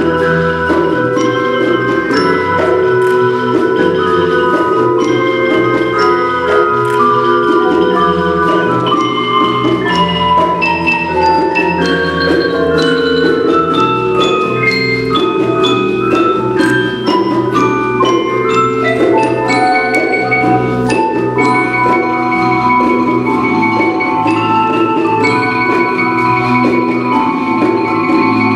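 Percussion ensemble playing on marimbas and vibraphones: rolled, held chords in the middle register with higher notes changing about once a second above them.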